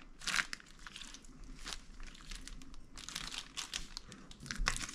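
A plastic zipper bag and a disposable plastic glove crinkling as raw chicken pieces are handled in the bag, irregular rustles with a few sharper crackles.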